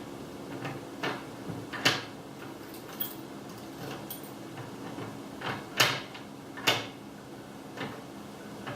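A few sharp clicks and knocks from a retro-style camper door latch and handle being tried, with three louder ones about two, six and seven seconds in.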